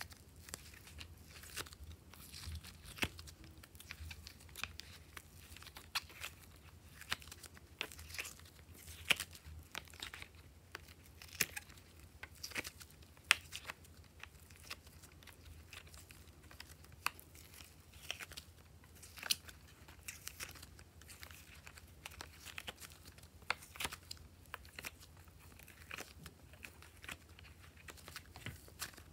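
Glossy slime being worked by hand, giving irregular sticky clicks and crackling pops.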